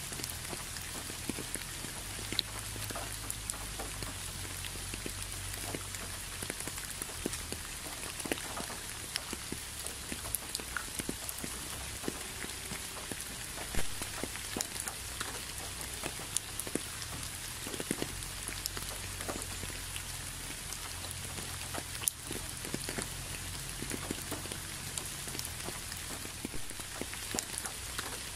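Steady rain falling on leaves: an even hiss with many separate drops landing close by, a few of them louder than the rest.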